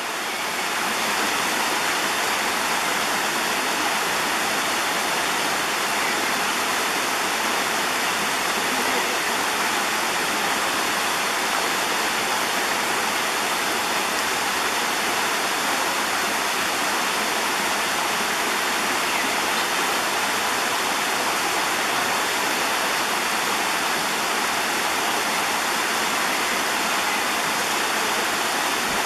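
Shallow stream running steadily: an even, unbroken rush of flowing water.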